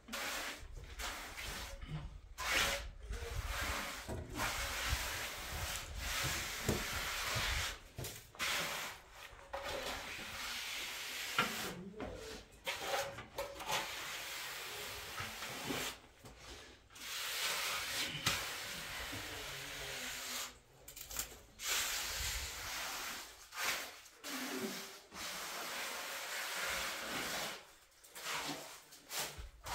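Rough scraping and rubbing strokes, one after another at an uneven pace, each lasting a second or more with short breaks between.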